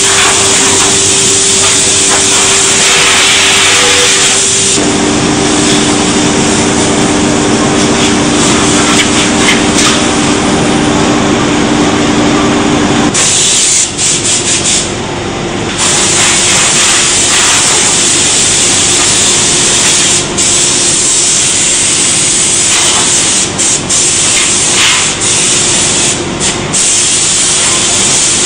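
Woodworking machinery running in a timber joinery workshop: a loud, steady rushing hiss over a low hum, its character changing abruptly a few times.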